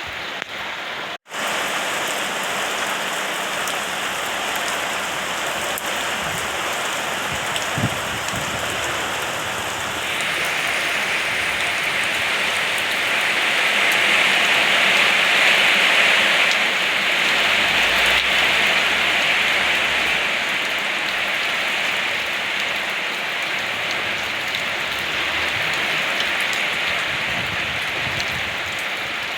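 Steady rain falling, growing heavier about ten seconds in. The sound cuts out for an instant about a second in.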